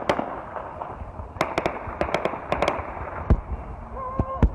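Gunfire from an armed tribal clash: sharp shots at the start, then quick clusters of shots, several to a second, from about a second and a half in.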